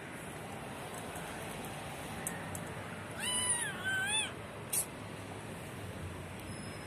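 Domestic cat meowing twice in quick succession about three seconds in, each call rising and then falling in pitch, followed by a single sharp click a moment later.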